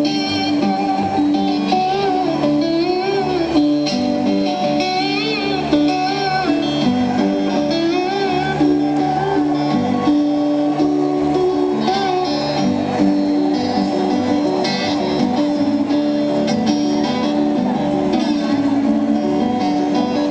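Live amplified band music led by guitar, with sustained notes that slide and bend in pitch, heard from the audience at a concert.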